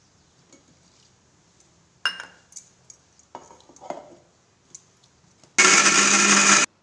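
A few knocks and clinks of kitchen utensils, then a kitchen mixer grinder runs loud and steady for about a second and cuts off abruptly.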